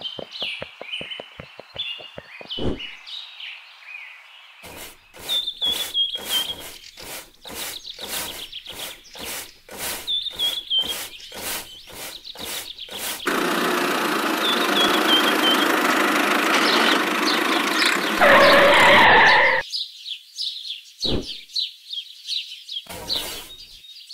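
A tiny straw broom sweeps dry leaves across sand in a quick, even run of scratchy strokes, while birds chirp. Then a steady rushing noise lasts several seconds.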